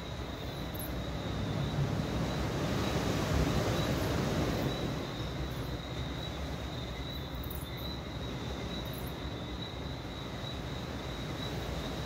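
Tropical night chorus: a steady high-pitched chirring over a low wash of noise that swells louder from about two seconds in and eases back after about five.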